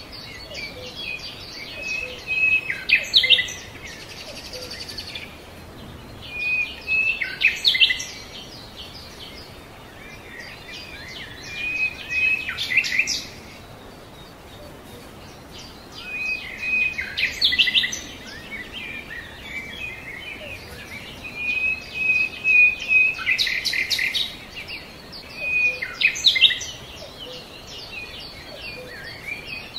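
A songbird singing short phrases of high chirps, repeated about every four to five seconds over a faint steady hiss.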